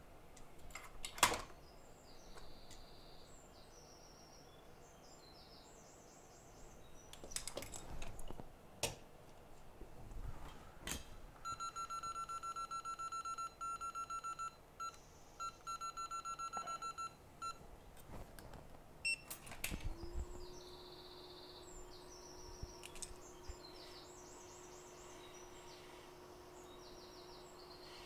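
Bench equipment at a microsoldering station: a few clicks and a repeated electronic beep, then a steady hum that spins up about two-thirds of the way through and holds, the blower of a hot-air rework station being started to heat the RAM off the A11 chip.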